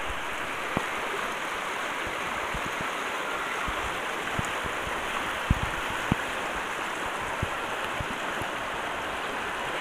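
Shallow rocky river flowing steadily over stones. A few faint knocks sound over it.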